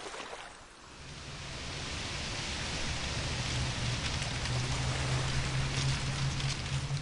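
Wind blowing: a rushing noise over a low rumble, beginning about a second in and growing louder over the next few seconds.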